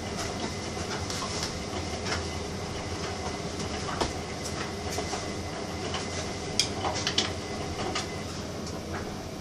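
Steady low rumble under scattered clicks and knocks of items being moved about in a wall cupboard, with a sharper cluster of knocks about two-thirds of the way through.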